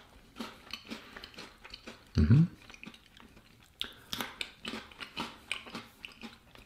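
Mouth chewing a crunchy milk chocolate Mikado biscuit stick: a run of small, scattered crunches and clicks. About two seconds in comes a short hum with rising pitch.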